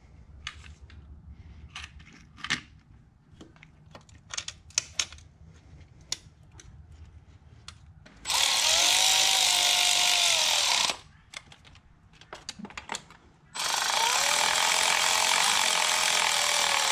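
Light metallic clicks and taps as bolts and a socket are handled, then a cordless power tool runs twice, each run lasting about three seconds with a whine that rises and falls in pitch, driving in the mounting bolts of a new coolant pipe on a BMW inline-six engine.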